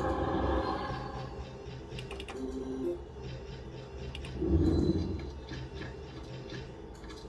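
Novoline Book of Ra Two Symbols slot machine sound effects after the free-spins trigger. A musical jingle fades out in the first second or so, then the machine makes quick ticking clicks as the book flips through pages to pick the bonus symbol, with a brief louder burst about four and a half seconds in.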